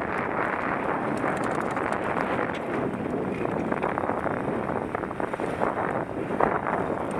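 Steady wind rush on a helmet-mounted camera's microphone as a mountain bike rolls down a dry dirt ridge, with the tyres crunching and the bike rattling over the loose ground. A few sharper knocks come about six seconds in.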